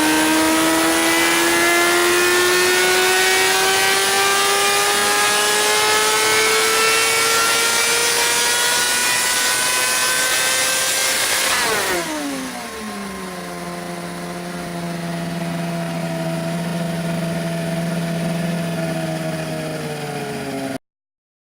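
Yamaha R6 race bike's inline-four engine through an aftermarket racing exhaust, pulling steadily up through the revs for about twelve seconds. Then the throttle shuts, the revs drop quickly and hold at a lower steady note until the sound cuts off suddenly near the end.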